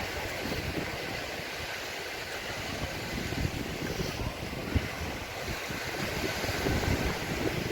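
Sea surf washing onto the beach, a steady hiss, with wind rumbling on the microphone.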